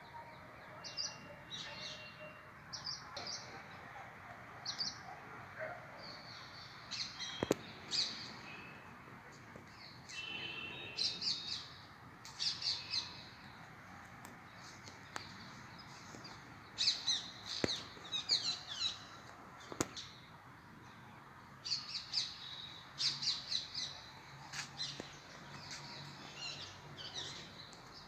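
Small birds chirping and twittering in quick clusters of high notes, over a faint steady outdoor background noise.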